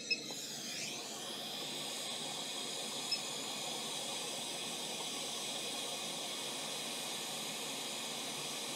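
Hot-air rework station blowing a steady hiss of hot air to reflow a freshly placed QFP chip onto a laptop motherboard. The airflow comes up within the first second, with short electronic beeps at the start and one more about three seconds in.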